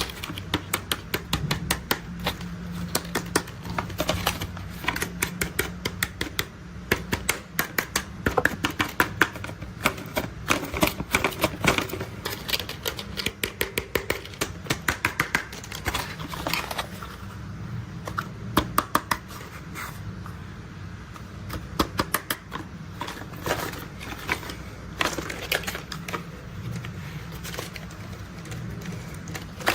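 Plastic toy construction vehicles being handled, with rapid irregular clicking and rattling of their small plastic parts in quick runs. A low steady hum sits underneath.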